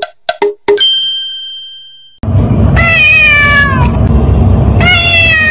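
A silver tabby cat meowing twice, each meow long and falling in pitch, over a steady low hum. Near the start, a few quick knocks end in a ringing ding.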